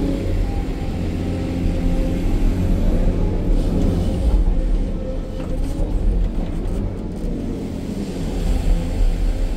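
SANY hydraulic excavator's diesel engine and hydraulics running under load, heard from inside the cab, while the machine digs a bucket of soil and swings to load a dump truck. There is a steady low rumble that rises and falls a little as the work goes on.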